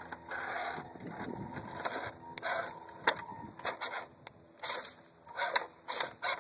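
Venom RC rock crawler's electric motor and gears whining in short spurts as it crawls over boulders. Sharp clicks and scrapes of the tyres and chassis on the rock come in between, the loudest about three seconds in.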